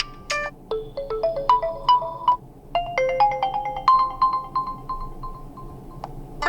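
Realme Narzo 50i built-in ringtone melodies playing: short phrases of bright, clear electronic notes, with a brief pause about two and a half seconds in before the next phrase.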